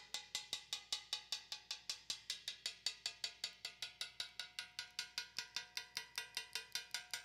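Rapid, evenly spaced metallic ticking, about five or six ticks a second, each tick with a short ringing tone.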